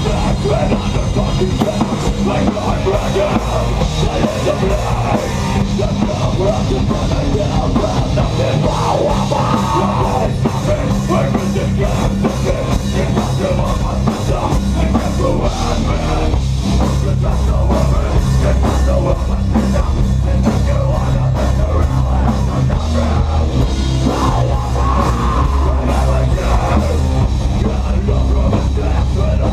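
Live rock band playing a loud, heavy rock song with the drum kit prominent, steady throughout.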